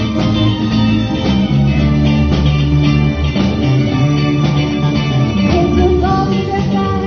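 Live band playing rock music: a bass guitar line, with keyboards and a steady beat. A bending melody line comes in near the end.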